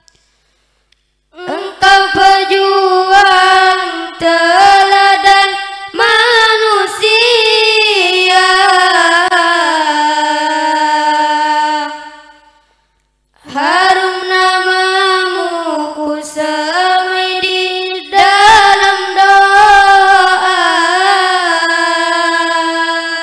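A young boy's solo singing voice carrying a slow, ornamented melody with long held, wavering notes, in two long phrases with a pause of about a second between them; no instruments are heard.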